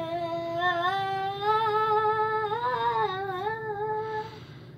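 A young girl singing one long note for about four seconds, the pitch creeping slowly upward and wavering near the end before it stops.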